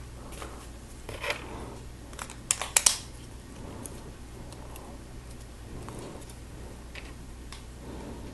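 Small plastic Lego pieces clicking as they are handled and pressed together, with a quick run of sharp clicks about two and a half seconds in and scattered faint ticks after. A low steady hum runs underneath.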